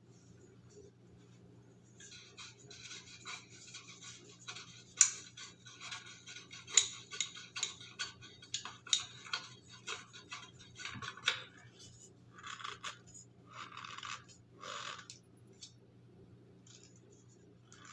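Metal pole sections of a floor-stand phone holder being twisted and screwed together by hand: a scraping, rattling grind with several sharp clicks, then three short rubbing scrapes near the end.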